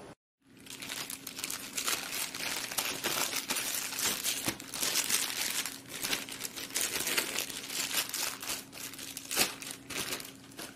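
Clear plastic packaging bag crinkling and rustling without a break as it is handled and opened, starting about half a second in.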